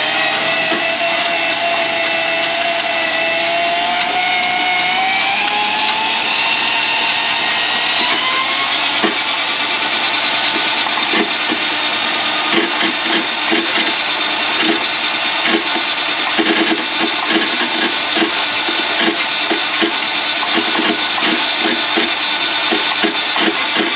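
Electric drain-cleaning machine running on a grease-clogged kitchen drain line. Its motor whine rises in pitch over the first several seconds, then it runs steadily with a rapid, uneven knocking from about nine seconds in.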